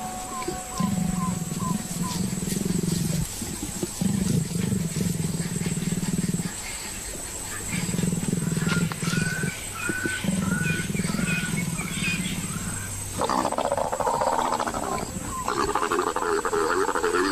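A pair of leopards growling in a string of long, low growls a second or two each, then louder, harsher snarls about thirteen seconds in: the calls of a leopard pair mating.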